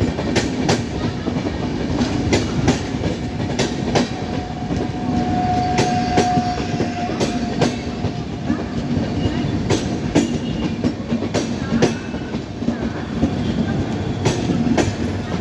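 Indian Railways passenger train running on track, steady rumble with irregular clicks of the wheels over rail joints. A faint steady tone sounds for about three seconds starting about four seconds in.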